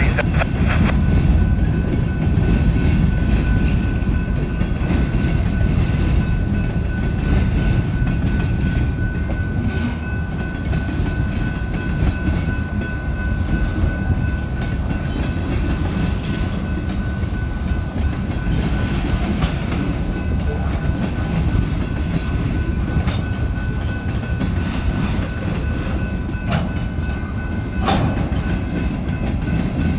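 Freight cars of a slow manifest train rolling past over a grade crossing: a steady rumble of steel wheels on rail with clicking at the joints and a faint steady high tone underneath. There are two sharper clacks near the end.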